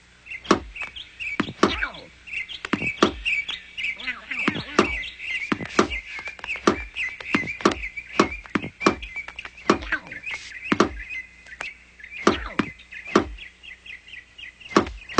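Cartoon sound effects: steady high bird twittering with a run of sharp, irregular knocks, about two to three a second.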